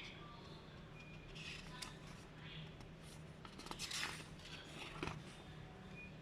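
Faint handling sounds of a plastic clamp meter and its packaging: scattered rustling and scraping with a few small clicks, the loudest about four seconds in.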